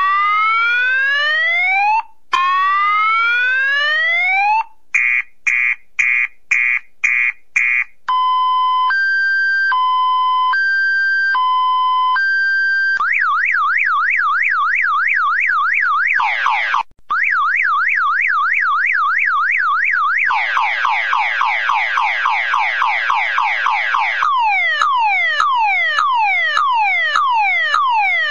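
Car alarm siren cycling through its tone patterns: repeated rising whoops, a run of about six short beeps, a high-low two-tone, a fast up-and-down warble, a quicker rapid warble, then the rising whoops again. Loud and electronic, with brief cuts between some of the patterns.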